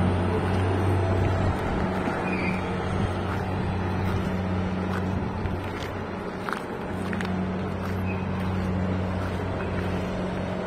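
Diesel engine of a grab-bucket crane ship running with a steady low drone while the crane slews its emptied clamshell grab back toward the hold; the drone eases off about six seconds in and picks up again.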